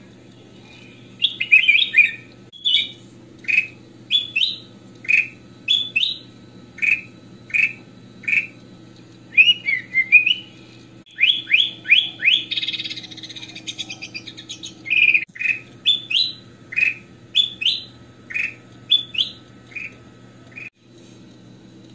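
Ruby-throated bulbul (kutilang emas) singing: short, clear whistled notes about one to two a second, with a quick run of notes and a brief scratchy warble around the middle.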